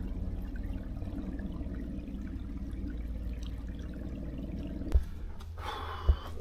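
Water from a small stream trickling steadily; a knock sounds about five seconds in.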